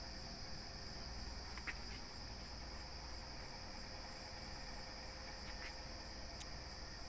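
Insects trilling steadily at a high pitch, with a few faint clicks about two and six seconds in.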